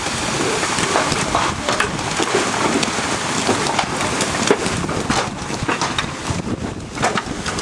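Heavy hailstorm: large hailstones and rain pelting down, a dense rush of noise with many sharp individual impacts.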